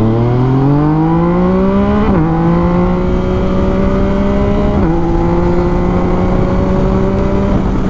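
Yamaha MT-09's 850 cc inline-three engine through an Akrapovic full-carbon exhaust, accelerating under way: the revs climb, drop with an upshift about two seconds in, climb again, drop with a second upshift about five seconds in, then rise slowly.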